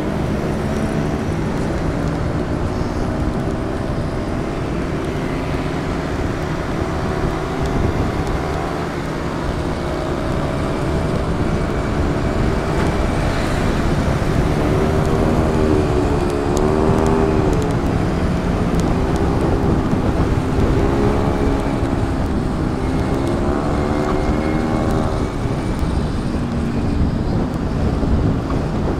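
Motorcycle engine running while riding, its pitch rising and falling several times as the throttle is opened and eased, over steady wind and road noise.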